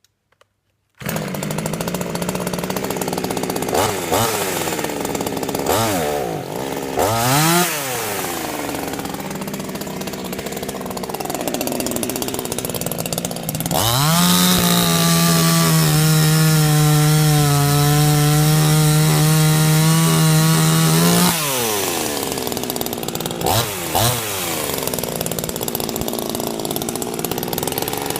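Tatra Garden MS 150 two-stroke petrol chainsaw starting to run about a second in, idling with a few quick throttle blips, then held at high revs for about seven seconds before dropping back to idle, with more blips near the end.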